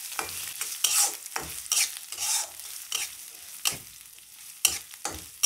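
Spatula stirring red lentils (masoor dal) as they dry-fry in a little oil in a karai: irregular scraping strokes against the pan, about two a second, over a light sizzle.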